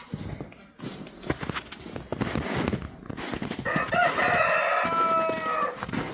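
A rooster crows once: a drawn-out call of about two seconds that starts about four seconds in and tails off slightly in pitch, over rustling and clattering.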